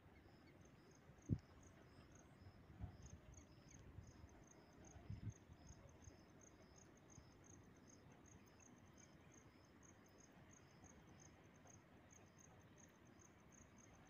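Crickets chirping faintly in quick, even pulses, two at slightly different pitches. A few short low thumps come in the first few seconds, the loudest about a second in.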